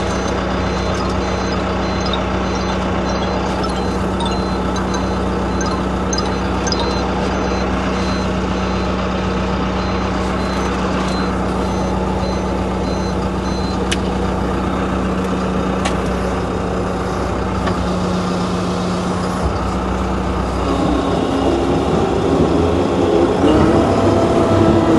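Heavy earthmoving machine's engine running steadily, with its reversing alarm beeping evenly for the first several seconds. The engine note changes and grows louder about twenty seconds in.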